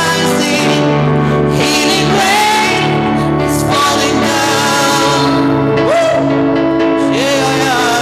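Gospel worship song: singing over sustained keyboard-like chords and a bass line.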